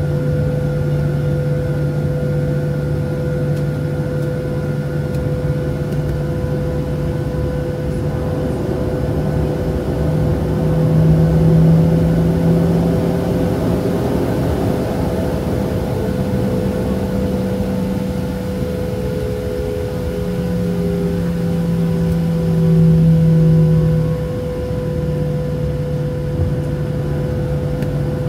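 Cabin noise of a Boeing 737-700 heard from a seat over the wing, its CFM56-7B jet engines running at low power on the ground as a steady hum. The engine tone rises briefly twice, about 11 and 20 seconds in, as a little more thrust is added.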